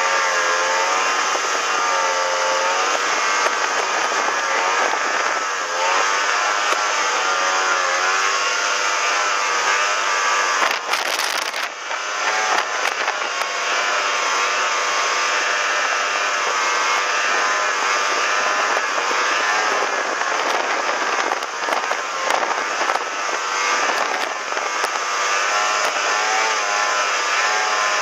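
Snowmobile engine running hard at speed, its pitch wavering up and down with the throttle. About eleven seconds in, the sound briefly drops.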